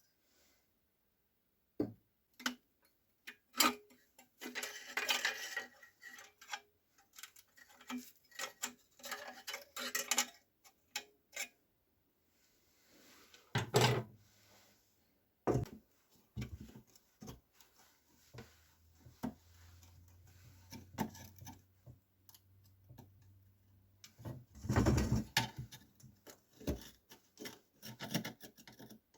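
Hands handling and working the metal parts of an oil lamp: scattered clicks, light clinks and rubbing, with a couple of louder knocks about 14 and 25 seconds in.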